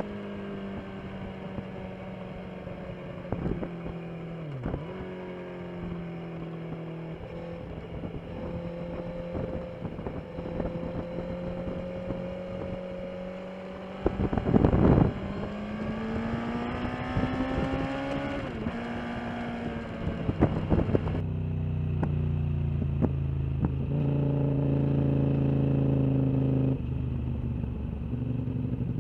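Motorcycle engine running at steady road revs, its note slowly rising and falling, with many short clicks or knocks over it. A loud rush of noise lasts about a second midway through. After that the engine note shifts lower and gets louder.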